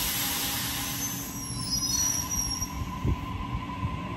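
Sydney Trains Waratah double-deck electric train departing, its wheels and running gear making a rumbling, rushing noise as it passes. A brief high-pitched wheel squeal comes in about a second and a half in, and a couple of short low knocks come near the end.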